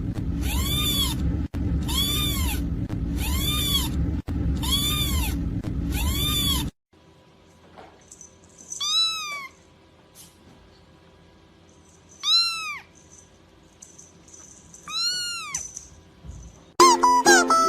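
A cat meowing over and over, about one meow a second, with a loud steady rumble underneath. After a cut, a cat gives three single meows a few seconds apart. Plucked-string music starts near the end.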